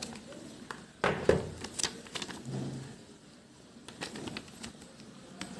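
Handling noises: a few sharp clicks, with light rustling and crackling between them.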